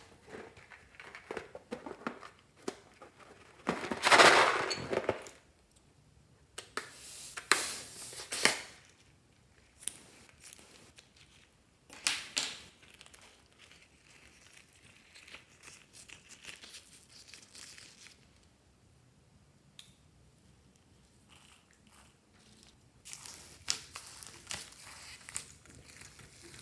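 Slime being squeezed and mixed by hand, crinkling and crackling in irregular bursts, the loudest about four seconds in.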